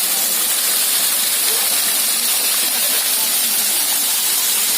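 Steady rush of a small waterfall, the water splashing continuously in an even hiss.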